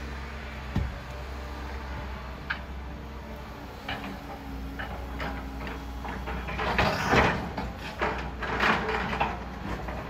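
Diesel engines of an excavator and an articulated dump truck running steadily, with scattered single metal clanks and a burst of louder clattering knocks about seven to nine seconds in.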